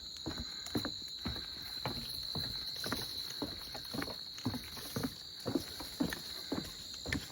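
A hiker's footsteps on wooden boardwalk planks: hollow knocks about twice a second in a steady walking rhythm.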